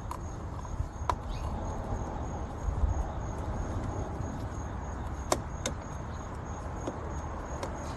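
A few small, sharp clicks and taps from a push-and-twist motorcycle turn signal bulb and its plastic lens being fitted into place by hand, over a steady low rumble.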